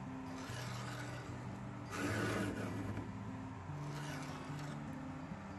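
Stihl 2-in-1 chainsaw sharpener filing the left-facing cutters of a saw chain, its round and flat files rasping across the teeth in slow, even strokes about two seconds apart. Quiet acoustic guitar music plays underneath.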